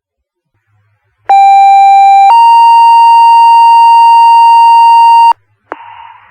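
Fire department radio paging tones: a two-tone sequential page, a loud steady lower tone for about a second stepping up to a higher tone held about three seconds, the alert that sets off volunteer firefighters' pagers. Near the end the radio channel opens with a click and a hiss of static.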